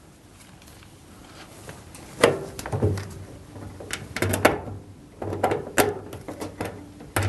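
Plastic door catch of a Hotpoint tumble dryer being handled and fitted into place: a string of separate clicks and knocks starting about two seconds in.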